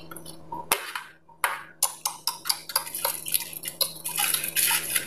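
Aluminium foil crinkling and rustling as it is pressed down over the rim of a metal baking pan, a quick, uneven run of sharp crackles that grows thickest near the end.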